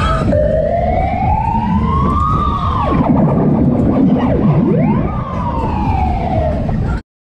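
A siren sound effect played over a fairground ride's sound system: a slow rising wail, a sharp drop, a quick swoop back up and a long falling wail, over a steady low noise. The sound cuts off suddenly near the end.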